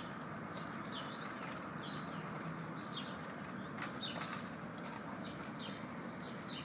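Large dog gnawing and licking a frozen half rabbit in a metal bowl, with a few faint clicks, over a steady outdoor hum. Small birds chirp over and over, a few times a second.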